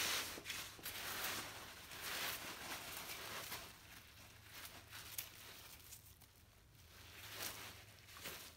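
Faint splashing and rustling of a wet polyester lace dress being handled in a bathtub of soapy water, louder in the first few seconds.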